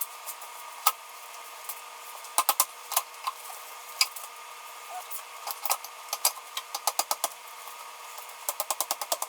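Scattered clicks and knocks of a motorcycle seat being set onto the bike and shifted to line up its bolt holes, with a quick run of clicks near the end, over a steady hum.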